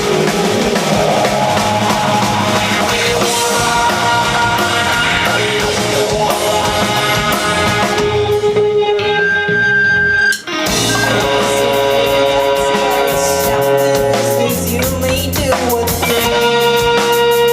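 Rock band playing live, guitar and drum kit in an instrumental passage without vocals, with a sudden brief break about ten seconds in before the band comes back in.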